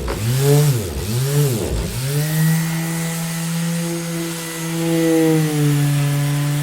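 Electric orbital sander's motor running with a steady pitched hum. Its pitch dips sharply and comes back up three times in the first two seconds, then holds steady.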